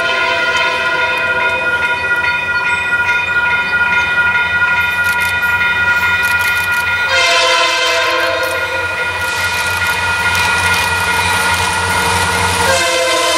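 Railroad crossing bell ringing steadily as an approaching diesel freight locomotive sounds its multi-note air horn: one long blast starting about seven seconds in, then a second blast near the end. The locomotive's low engine hum grows underneath.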